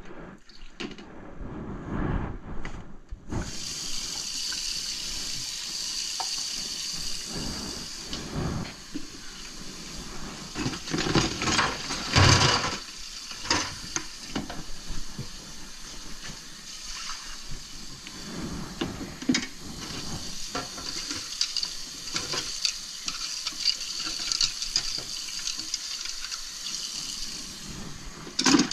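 Kitchen faucet running steadily into a sink, starting a few seconds in, with scattered knocks and clatter over it.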